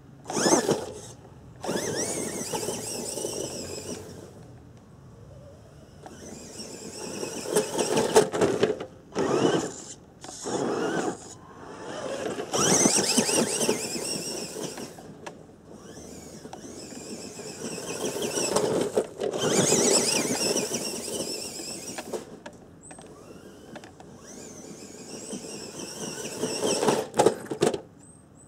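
Tamiya Lunchbox RC monster truck's electric motor and gearbox whining in repeated bursts of throttle, rising and falling as it drives away and comes back.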